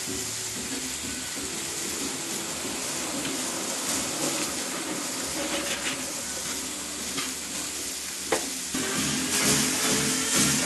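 Diced vegetables (carrot and leek among them) sizzling in oil in a nonstick frying pan while a spatula stirs and scrapes them. A single sharp knock comes a little past eight seconds in.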